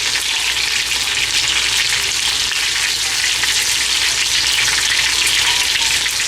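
Rice-flour and cornflour-coated chicken pieces frying in hot oil in a pan: a steady, dense sizzle with fine crackling. The pieces are turning golden, near the end of frying.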